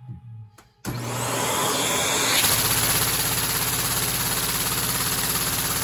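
Vacuum cleaner suction driving a three-cylinder Lego vacuum engine: the rush of air comes on suddenly about a second in and climbs to a steady level. Under it the engine's plastic pistons and valves clatter in a fast, even beat.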